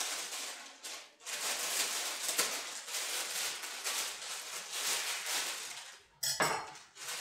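Mailing bag rustling and crinkling as it is handled and opened, with a short knock a little over six seconds in.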